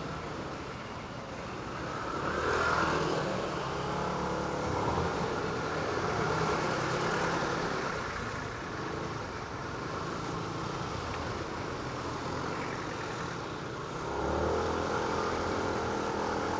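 Rusi ADX150 scooter's 150 cc liquid-cooled engine running at low speed in stop-and-go traffic, with two rises in engine pitch as it pulls away, one about two seconds in and one near the end, over road and traffic noise.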